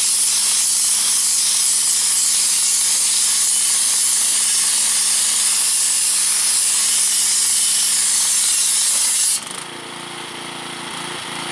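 Wet sandblasting with a pressure washer: a loud, steady hiss of high-pressure water and sand spraying onto a painted steel fender. It cuts off suddenly about nine and a half seconds in, leaving the lower hum of the pressure washer's engine running.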